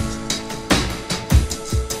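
Background music: a track with drum hits and held notes.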